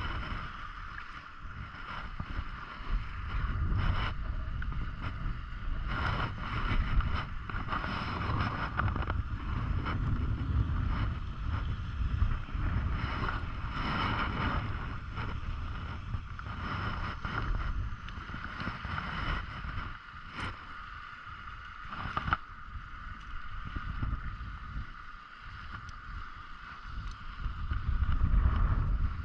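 Wind buffeting the microphone on a small fishing boat, over a steady high-pitched whine, with a few scattered knocks.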